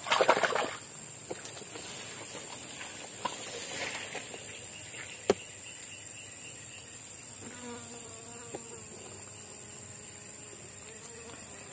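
Steady high-pitched drone of insects (crickets or cicadas). In the first second dry grass and leaves rustle as a hand pulls back from the hole, and about five seconds in there is one sharp click.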